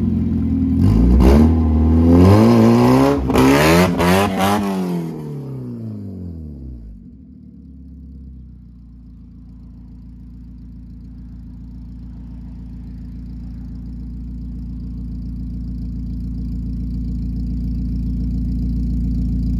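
Car engine revved hard for a few seconds during a brake stand, with a loud hiss of tyres spinning on the pavement at the peak. The revs then fall away and the engine settles into a steady idle that grows steadily louder.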